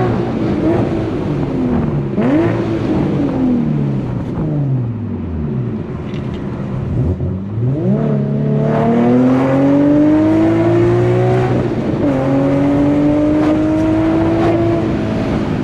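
Infiniti G37's 3.7-litre V6 through an ISR single-exit GT exhaust, accelerating through the gears. The engine note climbs, drops at a shift about 2 s in, falls away as the car slows, then climbs hard again about 8 s in, with another shift near 12 s.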